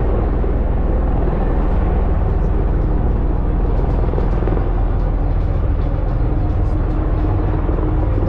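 Aircraft engine noise: a steady, loud drone with a heavy low rumble that holds even throughout.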